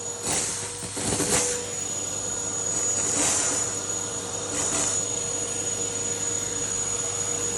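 Numatic Henry vacuum cleaner running with a steady high whine, with about four short louder rushes as spilled Coco Pops cereal is sucked up the hose.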